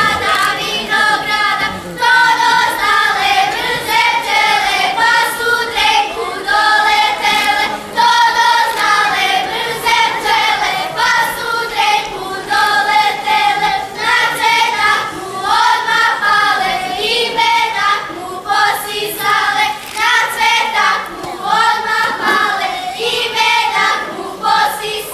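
A group of girls singing a Serbian folk dance song together in phrases, with brief breaks between lines.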